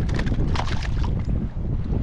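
Wind rumbling on the microphone, with a brief burst of water splashing about half a second in as a hooked summer flounder (fluke) is pulled from the water.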